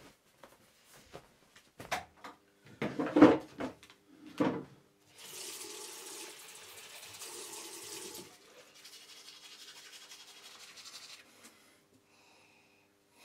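A few short thumps and rustles, the loudest about three seconds in, then a bathroom sink tap running steadily for about three seconds, followed by a softer stretch of running water for a couple of seconds more.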